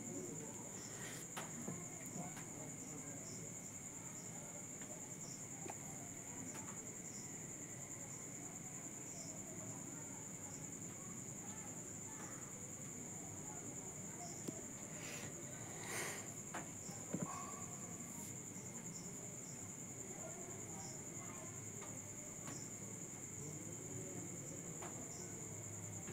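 Insects trilling continuously in one steady high-pitched note, with a few faint clicks about two-thirds of the way through.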